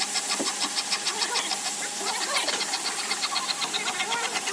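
Broom sweeping sawdust across a wooden slab, over a fast, even ticking of about nine strokes a second and a steady hum.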